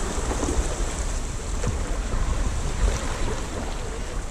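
Wind buffeting the microphone, with water washing along the hull of a kayak gliding through shallow water, and a few faint knocks.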